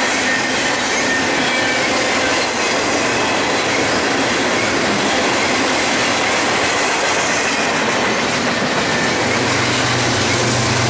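Double-stack container freight train's cars rolling past at speed: a loud, steady rush of steel wheels on rail. About nine seconds in, a low diesel engine hum joins as the rear locomotive draws near.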